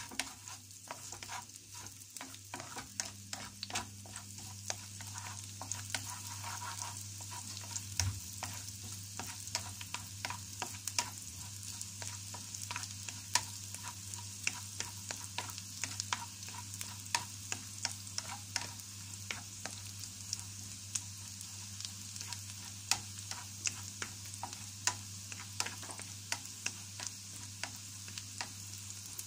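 Chopped garlic sizzling in hot oil in a frying pan, stirred with a wooden spatula: a steady sizzle with frequent sharp clicks and scrapes as the spatula strikes the pan.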